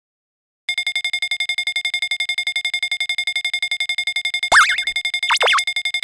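A synthesized electronic ringing tone, trilling rapidly at about ten pulses a second, starts under a second in. About four and a half seconds in, cartoon boing-like sound effects swoop down and up in pitch over it, twice, the first the loudest moment.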